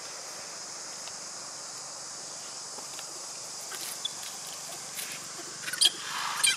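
Steady high-pitched drone of insects, with a few faint clicks, then two short, loud rustles near the end.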